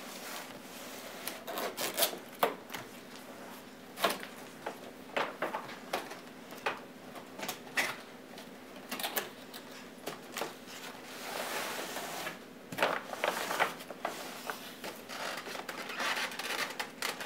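Large cardboard box being handled and opened on a table: scattered sharp taps and knocks as it is turned and set down, with stretches of cardboard rubbing and scraping in the second half as the lid flap is pulled open.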